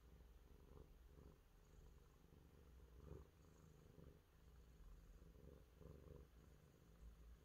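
Domestic cat purring faintly while its face and cheeks are rubbed, the purr swelling and fading in uneven waves.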